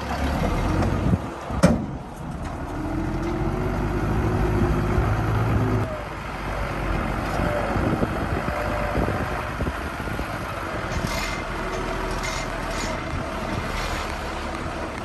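Diesel engine of heavy construction machinery running steadily, its pitch rising and falling for a few seconds, with one sharp knock about a second and a half in.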